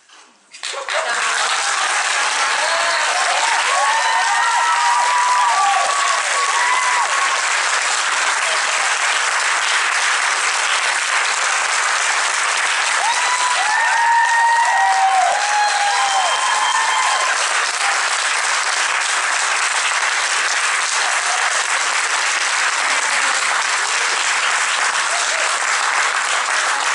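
Audience applause that breaks out suddenly about a second in and keeps up loud and steady, with whooping cheers rising over it twice.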